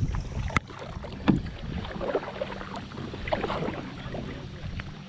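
Kayak paddle strokes: the blades dipping and splashing in the water. There are two sharp knocks about half a second and a second and a half in.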